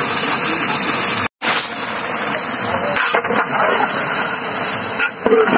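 Steady hiss, broken by a brief dropout a little over a second in. After it, a metal spatula stirs and turns raw mutton and spices in a large aluminium cooking pot, with a few knocks against the pot.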